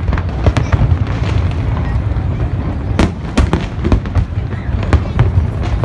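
Aerial fireworks display: a continuous low rumble of booms with sharp bangs and crackles breaking through, the loudest pair about three seconds in.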